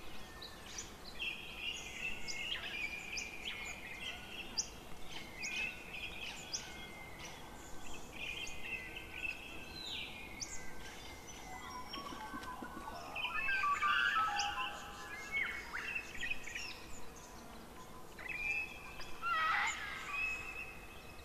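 Birds calling and singing: a continuous mix of short chirps, whistles and trills, some rising in pitch, busier about two-thirds of the way through and again near the end, over a faint steady hiss.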